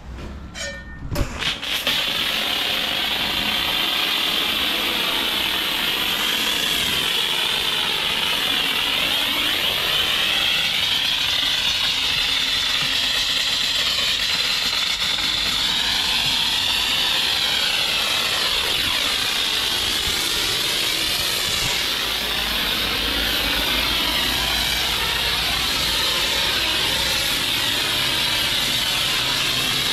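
High-pressure wash lance at a self-service car wash spraying foam against a vehicle's underside and tyre: a loud, steady hiss of spray that starts about two seconds in, after a few faint clicks.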